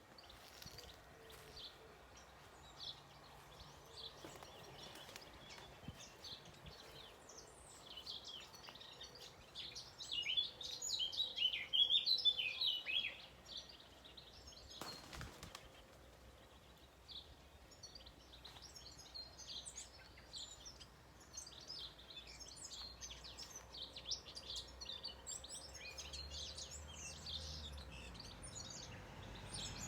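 Small songbirds chirping and twittering in a garden, many short high calls overlapping, busiest and loudest about a third of the way in. A brief rush of noise about halfway through, over a faint low background rumble.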